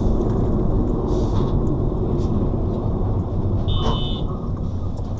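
Steady low road and engine rumble inside a moving car, with a short high electronic beep about four seconds in.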